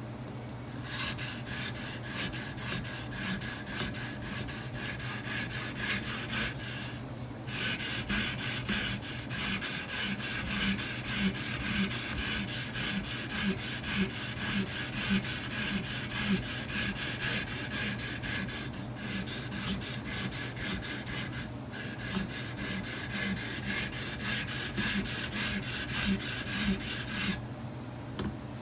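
Quick back-and-forth strokes of a wet 220-grit Edge Pro sharpening stone scraping along a small knife blade, with a few brief pauses between passes. The coarse stone is resetting a rolled edge and raising a burr along it.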